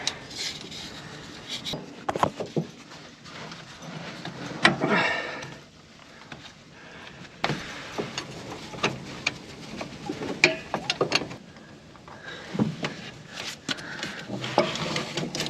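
Irregular clinks, knocks and rubbing of hand tools and metal parts being handled during a starter swap, with one short pitched squeak about five seconds in.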